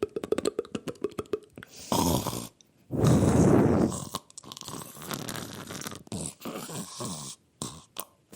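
A person fake-snoring. It starts with a fast rattling snore, then runs into several long rasping snores with short breaks between them.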